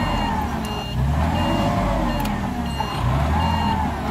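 Forklift engine revving up and down in three surges as the stuck machine tries to drive out of deep snow, with its backup alarm beeping steadily, a short high beep a little under twice a second.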